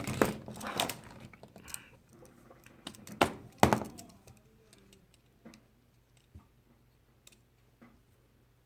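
Small metal clicks and knocks of an Imperial pocket knife being handled. They come thick in the first few seconds, with two louder knocks a little over three seconds in, then thin out to a few faint ticks.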